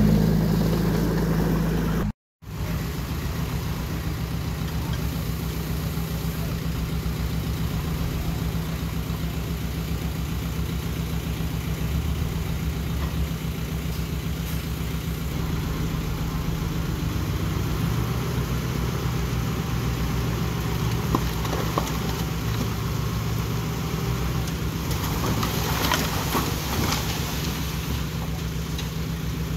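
Diesel engine of small earthmoving machinery running steadily at low revs, cut by a split-second gap about two seconds in.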